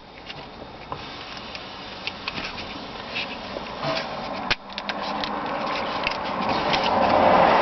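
Handling noise from a car window master switch being pulled and pressed into position in its console mount: scattered small plastic clicks and taps over rubbing, with the rubbing growing louder near the end.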